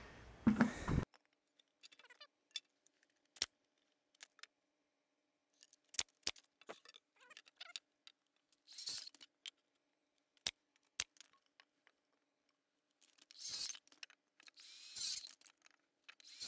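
Scattered light clicks and knocks of hand tools and lumber being handled on a concrete slab, with three brief rustling noises.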